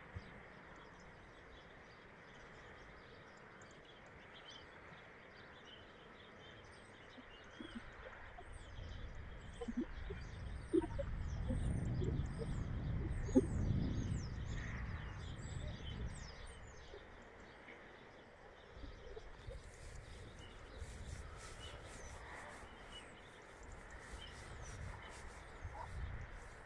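Small birds chirping, with many quick rising chirps through the first half or so. A low rumble swells in the middle and fades again, and near the end a run of quick crackling clicks comes in.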